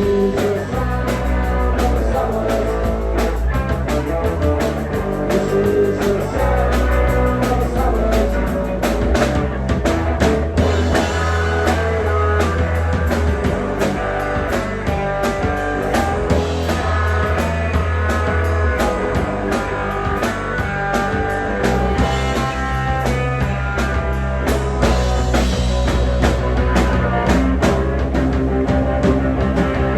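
Rock band playing a punk song, with drum kit, bass and electric guitar going steadily throughout.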